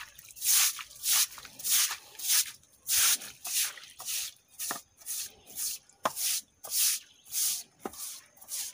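Broom sweeping a packed-dirt floor: brisk scraping strokes, about two a second, with a few sharp clicks among them.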